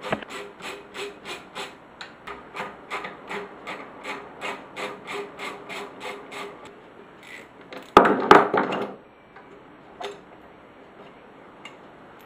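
Hand ratchet being worked back and forth to undo the bolts of an outboard water pump housing, clicking in an even rhythm of about three strokes a second. A short, loud clatter of metal parts comes about eight seconds in.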